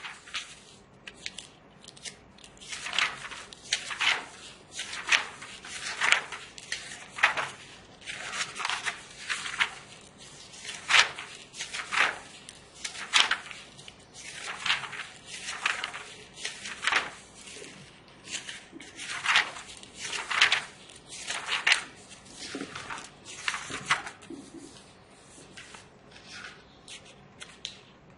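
Paper being worked by hand: a textbook's pages rustling and a felt-tip marker scratching on the paper, in a run of short strokes about once a second, thinning out near the end.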